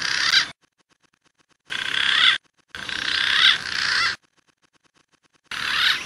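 Green pigeon (punai) calling in short whistled, warbling phrases, each half a second to a second and a half long, with silent gaps between them: the end of one phrase, then one about two seconds in, a longer one just after, and another starting near the end.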